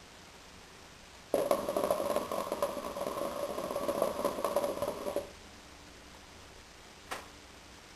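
Hookah water bubbling as smoke is drawn through the hose. It starts about a second in, runs steadily for about four seconds and stops suddenly. One short click follows near the end.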